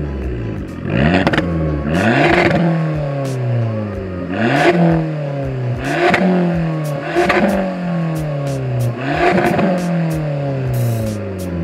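Stationary 2015 Abarth 500's turbocharged 1.4-litre four-cylinder revved about six times through an aftermarket cat-back exhaust. Each rev climbs sharply and then falls away slowly, with crackles as the revs drop.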